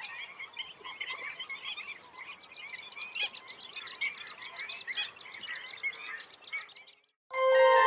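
A dense natural chorus of many overlapping short animal calls, which cuts off suddenly about seven seconds in. Music starts just after.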